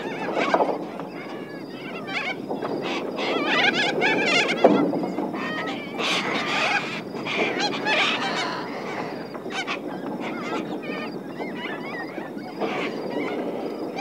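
A flock of little corellas calling: many harsh screeches and squawks overlapping without a break, loudest a little past the middle.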